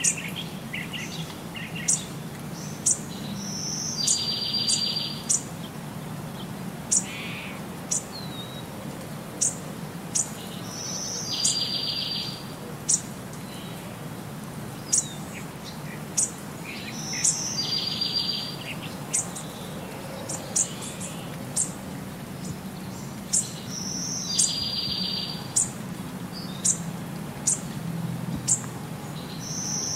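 Birds chirping: short sharp high chirps about once a second, and a longer buzzy call that comes back every six to seven seconds, over a low steady hum. The pattern repeats the same way throughout, like a looped birdsong track.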